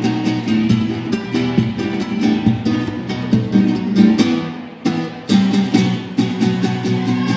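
Two acoustic guitars played together as a duet, with quick plucked and strummed notes over a chordal accompaniment; the playing thins briefly and then comes back in with a sharp strum about five seconds in.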